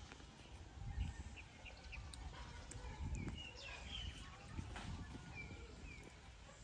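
Faint short high chirps of birds, several falling in pitch, scattered throughout, with a few soft low knocks and rustles of branches now and then.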